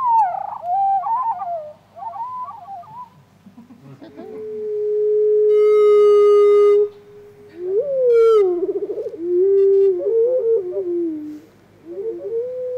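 A recording of a songbird's song played back slowed down, so that it sounds far lower and longer than a bird sings. After a burst of quick sliding notes, a slower, lower pass begins about four seconds in: one long steady whistle, then a downward slide, a fast trill and a string of short choppy notes.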